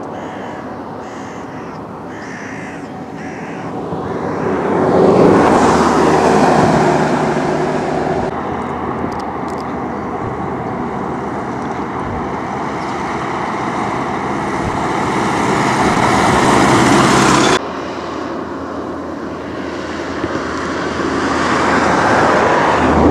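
Road traffic going by: a steady rush of vehicle and tyre noise that swells loudly twice as vehicles pass, broken by a sudden cut about two-thirds of the way through.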